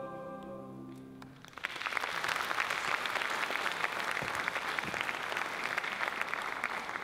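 The final held chord of a choir and band dies away, then audience applause breaks out about a second and a half in and keeps going.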